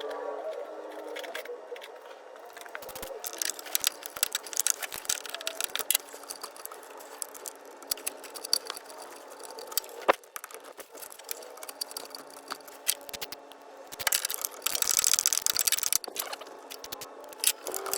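Scattered light metal clicks, taps and rattles of hand tools and parts being handled while a replacement radiator is fitted into a car's engine bay. There is a denser run of rapid clicking near the end.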